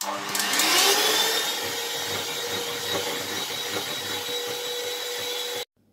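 Electric hand mixer switched on, its motor whine rising in pitch over the first second and then running steadily as the beaters whip stiff egg whites with an egg yolk added. It cuts off suddenly near the end.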